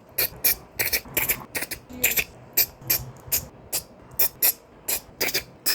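Plastic Lego bricks clicking and snapping together in quick, uneven succession, a few clicks a second, as small pieces are fitted onto a build.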